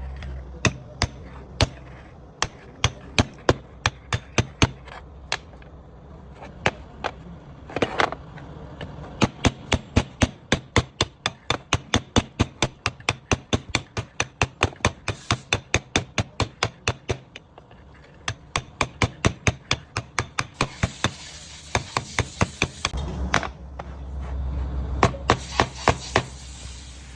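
Hand hammer striking repeatedly in quick runs of about three blows a second, with brief pauses between runs, while working on a differential pinion.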